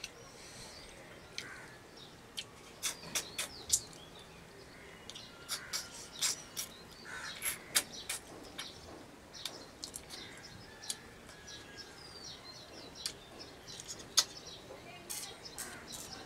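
Close-up eating sounds of rice and fish curry eaten by hand: a string of sharp mouth smacks and chewing clicks at an uneven pace. Birds chirp and call in the background.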